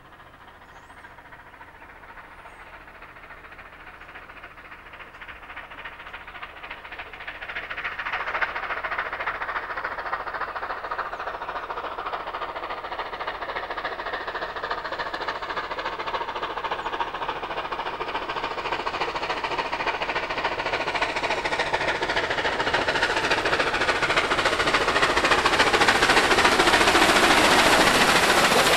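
Streamlined NSW C38 class 4-6-2 steam locomotive 3801 working hard at the head of a passenger train, its rapid exhaust beats growing steadily louder as it approaches and passes close by.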